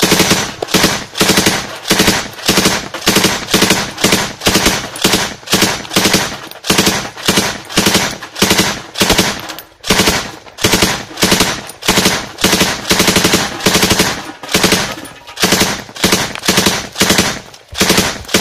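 Machine gun firing sustained, evenly paced shots, about two or three a second, with a couple of brief pauses.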